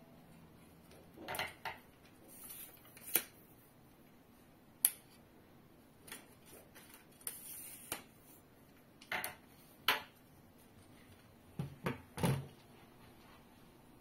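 Aluminium camera tripod being handled and set up: irregular sharp clicks, knocks and clatter from its metal legs and plastic leg locks and brace, a dozen or so, the loudest about 3, 5, 10 and 12 seconds in.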